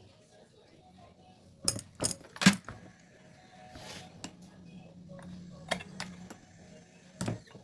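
Sharp metallic clinks and knocks of small metal parts and tools being handled during a carburetor overhaul. There are three quick strikes, then two more and a last one near the end, over a faint steady hum.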